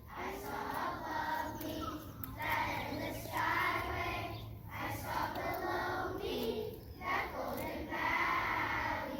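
A group of young children singing together as a choir, in phrases of a second or so with short breaks between them.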